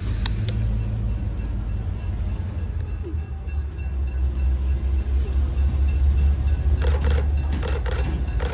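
Deep, steady rumble of a diesel locomotive hauling a passenger train, growing a little louder. About seven seconds in, a quick run of camera shutter clicks starts.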